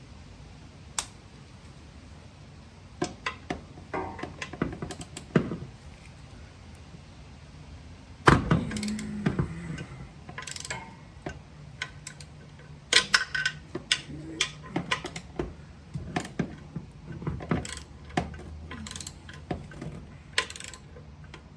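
Hand tools clicking and clinking on the clutch pressure plate bolts as they are broken loose one by one, the bolts torqued unevenly. Irregular sharp clicks and knocks, with one loud knock about eight seconds in.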